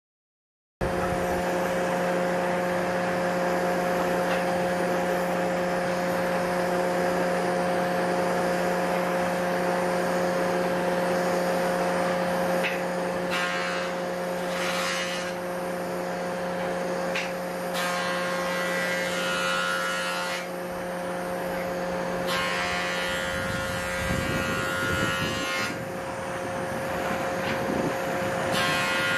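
Handheld butane torch burning steadily, a continuous hissing flame with a steady droning hum underneath, as it is played over the wood to char the surface.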